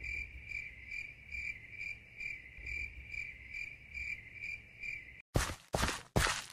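A cricket chirping steadily, about two and a half high chirps a second. It cuts off abruptly about five seconds in, and loud, evenly paced footsteps follow, roughly a step every half second.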